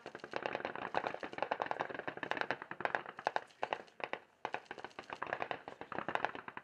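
Automatic machine-gun fire in long rapid bursts of many shots a second, with a short pause about four seconds in.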